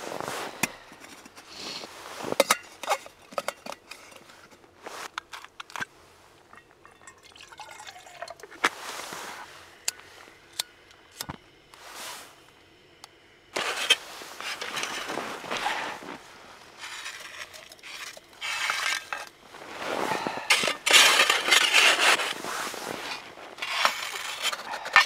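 Clinks and knocks of a metal mug and a gas-canister camp stove's pot being handled, then several stretches of scraping and crunching as snow is scooped into the stove pot to melt, the loudest near the end.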